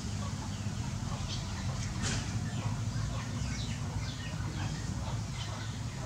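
Domestic fowl clucking and chirping in many short, falling calls several times a second, over a steady low hum, with one sharp click about two seconds in.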